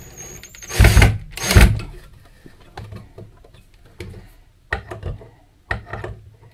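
Cordless drill driving a screw into a timber beam: a faint high motor whine, then two loud bursts about a second in, followed by a few sharp knocks.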